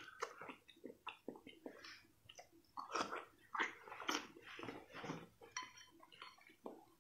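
Close-up eating sounds: irregular wet smacking, sucking and chewing as a soft, fatty slab of meat in sauce is bitten into and chewed.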